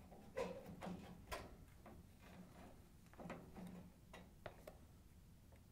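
Faint scattered clicks and light knocks as a trash compactor's front control panel is lifted off and let down to hang on its wires.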